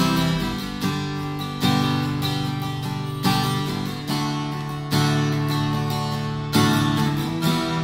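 Steel-string acoustic guitar, newly strung with Ellen 10-gauge strings, strummed in slow chords, one strum about every second or so. Each chord rings out and fades before the next, and the chords change as it goes.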